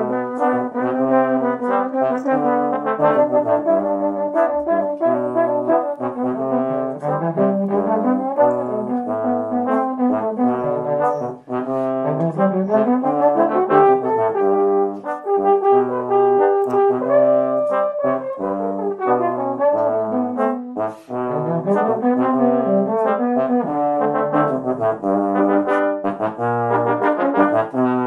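Trombone quartet, three tenor trombones and a bass trombone, playing a pop song arrangement in four-part harmony, with sustained chords over a bass-trombone line. A few notes slide up and down in pitch partway through.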